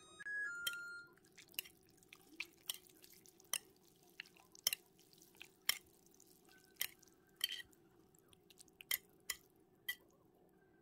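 A brief run of electronic beeping tones at the start, then scattered sharp drips and light clicks, roughly one a second, at a table with plates and a bowl of cold noodles in broth.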